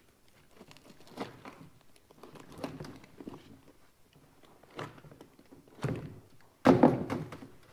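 A Korker Polar Vortex ice fishing boot being worked and pulled apart by hand on a table: scattered scrapes and knocks, with a heavier thunk about seven seconds in.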